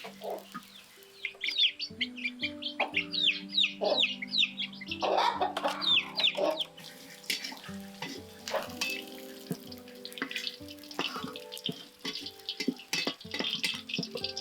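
Birds chirping in quick falling high notes for the first several seconds, over soft background music with held notes, with scattered clicks and knocks throughout.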